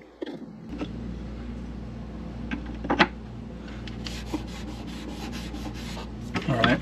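A hand rubbing and tapping on a varnished teak bulkhead panel, with one sharp knock about three seconds in. Under it a steady low hum starts just under a second in.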